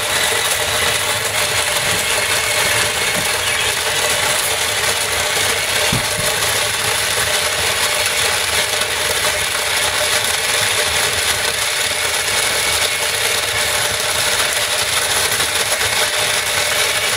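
Electric snow cone machine shaving ice cubes, its motor and blade running in a steady, loud grinding rattle as the lid is pressed down to feed the ice.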